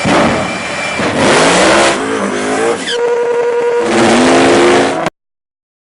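High-horsepower drag car engine revving hard, its pitch climbing in repeated rising sweeps.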